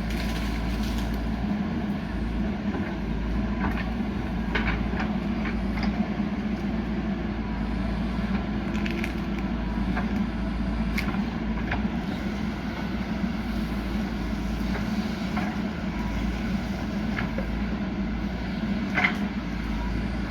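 JCB 3DX backhoe loader's diesel engine running steadily under work, with scattered knocks and crunches of rock and soil being dug, the sharpest crack near the end.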